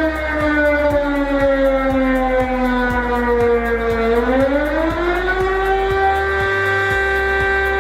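Electronic siren alarm tone from a voice alarm system. Its pitch falls slowly, sweeps back up about four seconds in, then holds steady, with faint regular ticks beneath.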